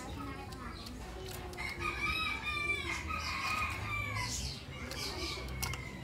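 A rooster crowing: one long wavering crow starting about a second and a half in and lasting about three seconds.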